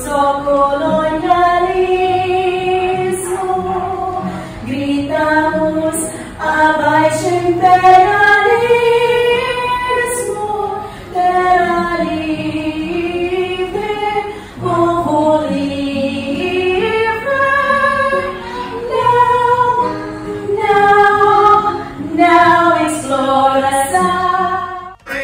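Background music: a song with a singing voice carrying a melody in long held notes, with short breaks between phrases.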